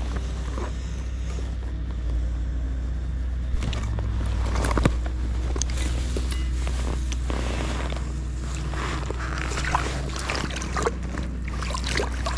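Shallow river water splashing and lapping around a wading angler's hands as he releases a fish, with small knocks and clicks of handling close to the microphone over a steady low rumble. The sharpest splashes come about five seconds in and near the end.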